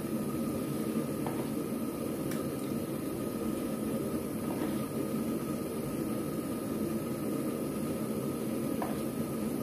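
Gram-flour batter fritters (phulkis) frying in a pan of hot oil with a steady sizzle. A few faint light ticks come as more batter goes in.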